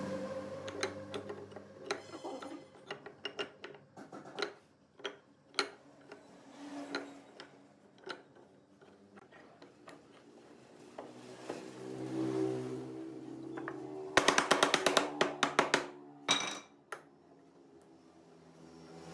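Wooden slats knocking and clacking as they are set in place between pipe clamps, with a quick rattle of clicks about three quarters of the way through as the clamps are handled. Soft background music runs underneath.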